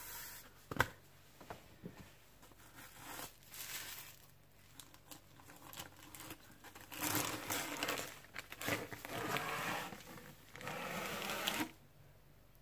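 A cardboard mailing tube being opened and unpacked by hand: a sharp click a little under a second in, then bouts of paper crinkling and rustling, loudest in the second half.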